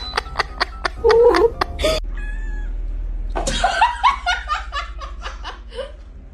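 A person laughing in rapid repeated bursts, with a cat's voice mixed in.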